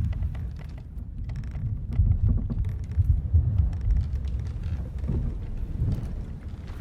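Ship-at-sea ambience: a deep, surging rumble of wind and sea around the hull, swelling loudest a couple of seconds in, with faint scattered ticks and knocks.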